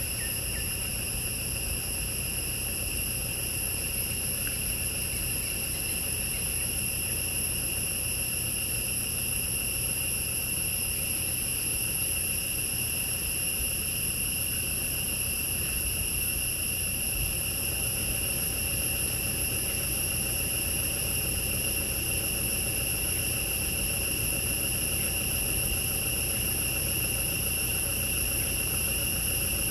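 A steady chorus of forest insects: several shrill high tones held unbroken, over a low steady rumble.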